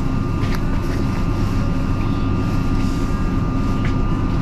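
Inside a third-rail electric commuter train carriage: a steady low rumble with a constant high whine over it, and a couple of short clicks.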